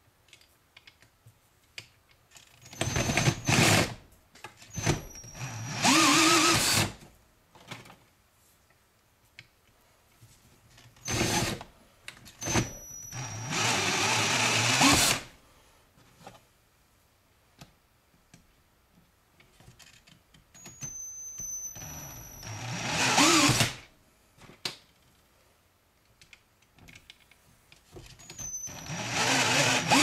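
Cordless drill driving a TNT Tooling WSX wire stripper as Romex wire is stripped of its insulation. The drill runs in four spells of short bursts, each a second or a few seconds long, with quiet gaps between. In some bursts its whine rises in pitch as the motor spins up.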